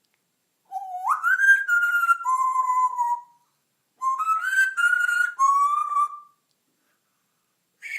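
African grey parrot whistling a short tune twice. Each phrase is about two and a half seconds of stepped notes that rise and then fall.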